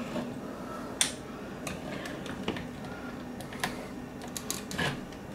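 Scattered light clicks and taps of a screwdriver and plastic wire connector against an ice maker's plastic housing as the wiring harness is pried out, with a sharper click about a second in.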